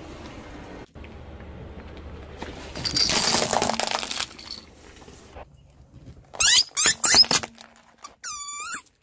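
A car tyre crushing small objects on asphalt: a crackling crunch under the wheel, then several loud squeaks that glide in pitch and a short wavering squeal, like rubber squeaky toys being squashed.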